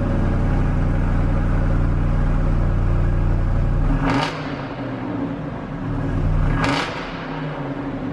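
Jeep Wrangler engine running through its exhaust: a steady deep idle for about four seconds, then two short revs about two and a half seconds apart.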